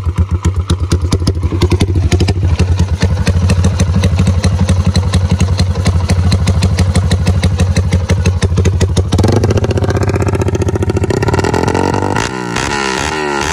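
Street-tuned motorcycle engine running through an aftermarket exhaust. It idles with a steady pulsing beat for about nine seconds, then is revved up. Near the end it gets a few more rev blips that rise and fall.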